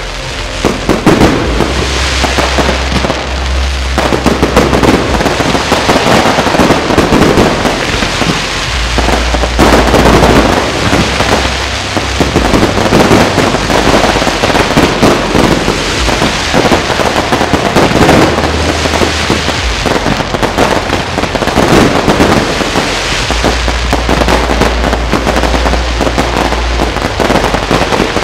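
Fireworks display: a dense, continuous barrage of shells bursting and crackling, loud throughout. A low hum comes and goes underneath in several stretches.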